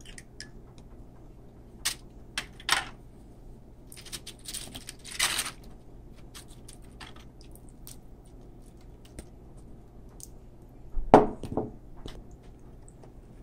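Metal spoon spreading picante sauce over bean chips in a foil baking pan: scattered clicks, scrapes and light crinkles of the foil and chips, a short run of scraping about five seconds in, and two louder knocks close together near the end.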